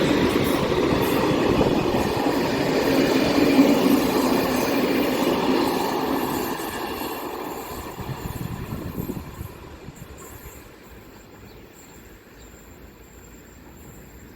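Train passing on the rails behind a BDZ class 44 electric locomotive, loud at first and fading away over about ten seconds as it moves off.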